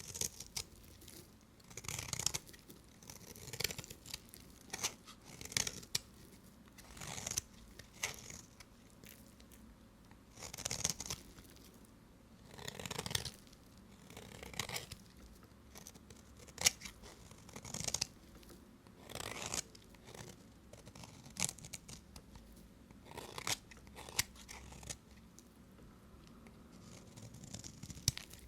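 Bars of soap being cut, each cut a short, crisp crunching scrape, coming one every second or two.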